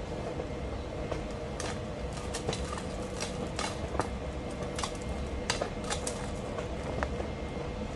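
Gravel stones clicking and knocking against each other as gloved hands move them over a plastic sheet: irregular sharp clicks, several a second, over a steady faint hum.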